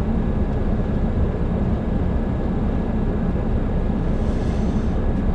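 Heavy truck's diesel engine running steadily at low revs, heard from the cab, as the truck is driven slowly back and forth in deep snow to cool its tyres so they do not sink in.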